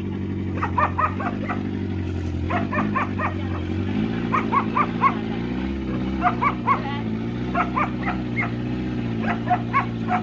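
A dog barking in quick runs of three to five barks, a run every second or two, over a vehicle engine running steadily.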